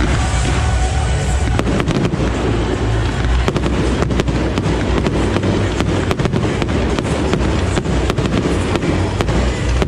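Fireworks bursting in a dense barrage: many sharp bangs and crackles over a continuous low rumble of explosions.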